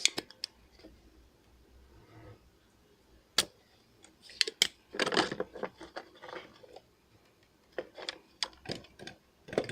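Small hand tools and parts handled on a workbench: scattered sharp clicks and short rustles while a mouse cable's wire is prepared for soldering.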